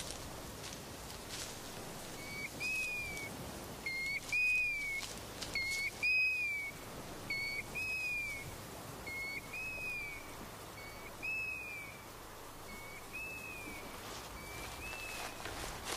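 A bird's whistled call repeated about every one and a half to two seconds. Each call is a short note followed by a longer note that rises and falls. The calls start a couple of seconds in and fade toward the end.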